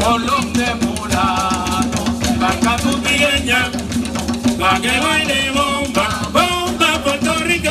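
Live Puerto Rican bomba: barrel drums (barriles de bomba) playing a steady rhythm under singing voices.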